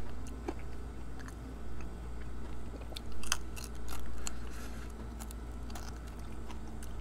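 Biting into and chewing a crispy chicken wing: scattered crunches, loudest about three and four seconds in, then quieter chewing.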